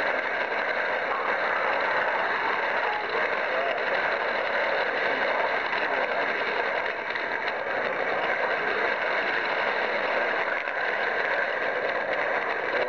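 HO-scale model diesel switcher running along the layout track, a steady purr from its electric motor, gears and wheels on the rails. The locomotive has no sound decoder, so the purr is its own mechanism.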